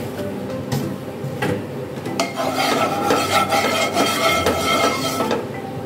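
A wooden spatula rubbing and scraping across the bottom of a nonstick pan, spreading a thin layer of warming oil. A couple of light taps come in the first second and a half, then about three seconds of steady scraping.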